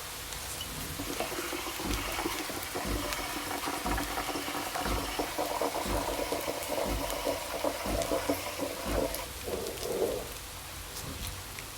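Steady rain, with a louder liquid sound over it from about a second in until near the end, marked by a soft low pulse about once a second.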